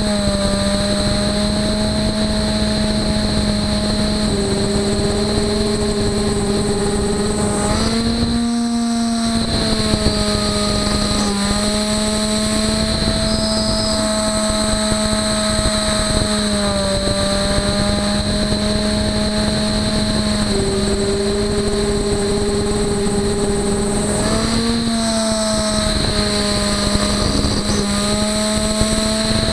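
CNC router spindle running at a steady pitch with a high whine, over the hiss of a cutter milling aluminum plate. Twice, about a third of the way in and again near the end, the cutting noise briefly drops away and the spindle note rises a little before settling back.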